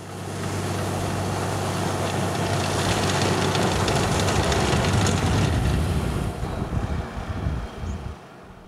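Rotary snow blower on a diesel-electric rack-railway service vehicle running and throwing snow: a steady low hum under a hiss of blown snow. It eases off from about six seconds in and falls away near the end as the throwing stops.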